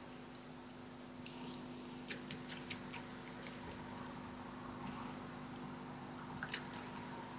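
Red fox cub eating from a dish, its chewing heard as irregular short crunches and clicks, bunched from about one to three seconds in and again near the end, over a steady low hum.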